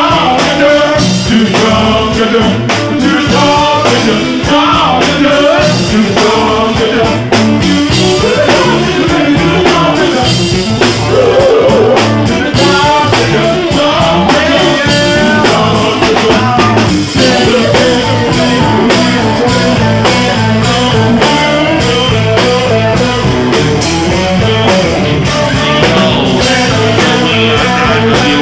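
Live funk band playing, with electric guitar and drums on a steady beat under sung vocals.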